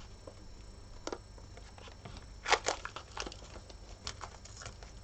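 Painter's tape being pulled off the roll and pressed around a doll wrapped in cling film: a few short crackling rips and crinkles, the loudest pair about two and a half seconds in.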